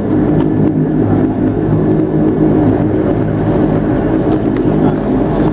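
Dash 8 turboprop engine and propeller running with a steady drone, heard from inside the cabin next to the engine, as the aircraft rolls along the runway after landing.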